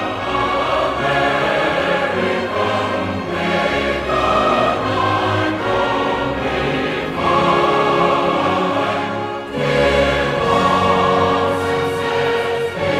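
Orchestral music with a choir singing long held notes, the chords changing every second or two.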